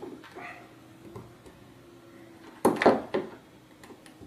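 Small plastic robot parts, a servo and tweezers being handled while a bolt and nut are fitted: a few faint clicks, then one louder clatter nearly three seconds in.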